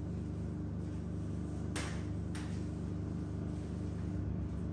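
Damp sponge wiped across a chalkboard, heard faintly over a steady low hum, with two short knocks a little before halfway through.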